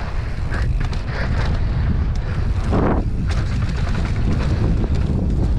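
Wind buffeting the microphone of a camera on a mountain bike descending a dirt trail at speed, with the tyres running over dusty dirt and short clicks and rattles from the bike.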